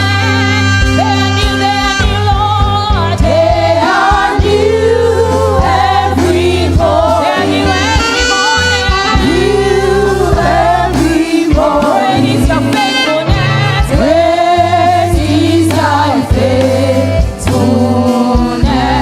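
Church praise team singing a gospel worship song in long, sustained lines over a steady low instrumental accompaniment.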